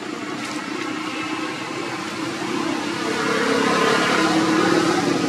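A vehicle engine running steadily, growing louder about three seconds in.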